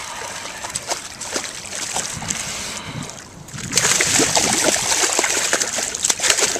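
Hooked bass thrashing at the water's surface beside the boat, fighting on the line with irregular splashes; the splashing grows louder a little past halfway through.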